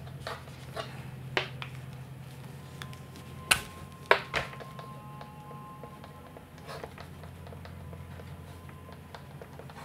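Dry-erase marker writing on a whiteboard: short scratchy strokes and sharp ticks as the tip meets the board, the loudest a few clicks around the middle, over a steady low hum.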